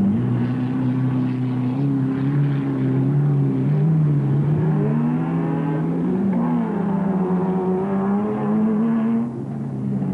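Off-road race car engines running and revving. The pitch holds steady, rises and falls in the middle, then drops off shortly before the end.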